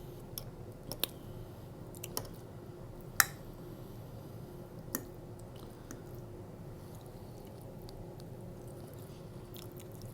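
Close-up chewing of cheesy pizza fries, with wet mouth smacks and sharp clicks scattered through, the loudest a little past three seconds in.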